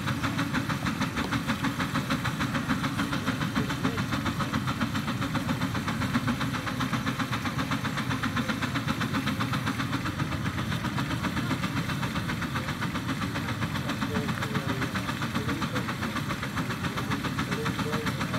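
Miniature reproduction Case steam engine working, its exhaust chuffing up the stack in a fast, even beat. The sharp exhaust blasts are what throw the fountain of sparks from the stack.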